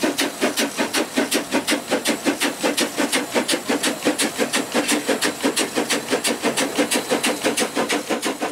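Small steam locomotive working along the track, its exhaust chuffing in an even rhythm of about four to five beats a second.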